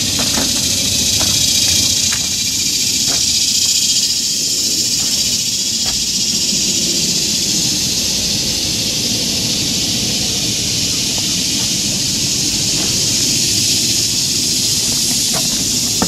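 Steady, loud hiss, strongest in the high range, over a low rumble, with a few faint knocks scattered through.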